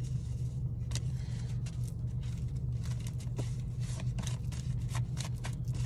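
Tarot cards being shuffled and handled: quick, irregular soft clicks and rustles, over the steady low hum of the car's running engine.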